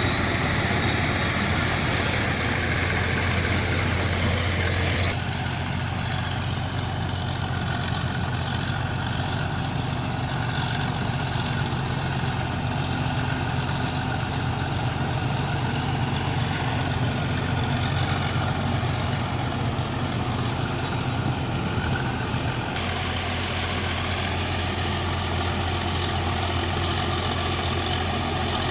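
Bulldozer's diesel engine running steadily with a deep drone, the sound changing abruptly twice, about five seconds in and again near the end.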